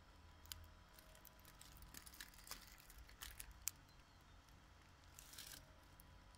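Near silence: room tone with a few faint clicks and a brief soft rustle about five seconds in.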